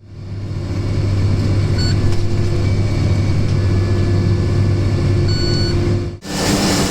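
Tractor engine running steadily with a deep hum, with two short high electronic beeps about two seconds in and again near the middle. Just after six seconds the sound cuts to a brighter, louder machinery noise.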